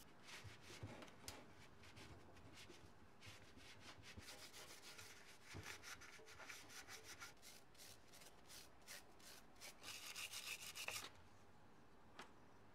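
Faint rubbing and scraping with many light clicks, as of hand work on parts. A denser run of scraping comes near the end, then stops suddenly.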